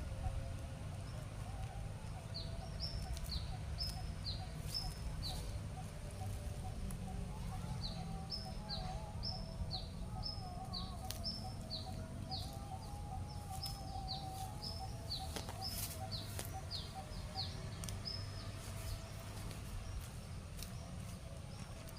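Bird calls: a bird gives runs of short, high chirps that each drop in pitch, several a second, one run about three seconds in and a longer one from about eight to eighteen seconds in. A lower wavering call carries on beneath them over a steady low rumble.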